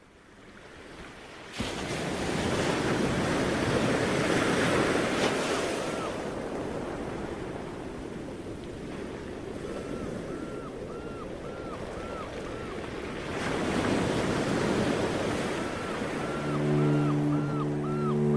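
Sea waves washing, a steady rushing that fades up from silence, jumps in level about a second and a half in, then swells and ebbs. Runs of short high chirps sound over it several times, and low sustained string notes come in near the end.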